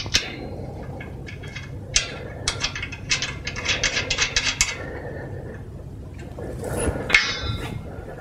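Metal clicks and clinks from fastening a nut and bolt on a wrought iron bed frame's bracing bar, including a quick run of about five small clicks a second. A louder metal clank about seven seconds in.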